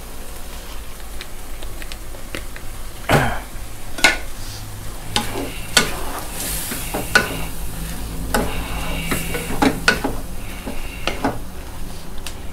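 Wooden spatula stirring shrimp and squid in a sizzling chili-paste sauce in a nonstick wok. The spatula knocks and scrapes against the pan about once a second over a steady frying sizzle.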